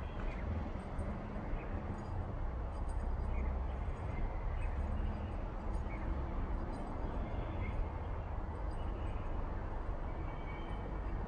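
Outdoor street ambience: a steady low rumble of wind on the microphone over a general hiss, with a few short, faint bird chirps.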